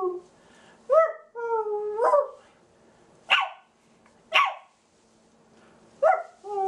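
A man imitating a puppy: whiny, yelping dog noises that rise and fall, two short harsh barks around three and four seconds in, then more yelps near the end.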